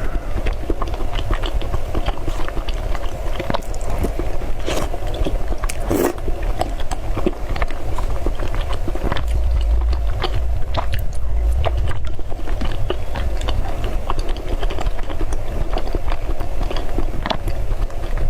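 A person biting and chewing white mochi balls, many short mouth clicks scattered through.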